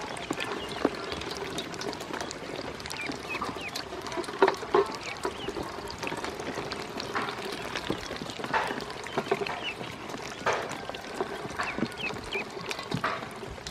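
Ducklings splashing and paddling in shallow water in a stainless steel bowl, with irregular little splashes and knocks and scattered short high peeps.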